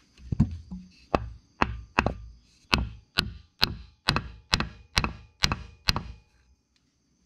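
About a dozen sharp knocks, roughly two a second, struck on a wooden board held against a new full-flow oil pump to tap it into an air-cooled VW Type 1 engine case. The knocks stop about six seconds in, once the pump is seated.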